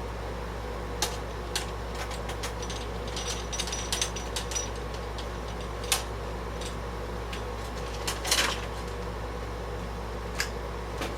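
Scattered clicks and light metallic taps of hands working parts loose inside an old AT computer case, pulling out the parallel and serial port connectors, with a short scraping rustle about eight seconds in. A steady low hum runs underneath.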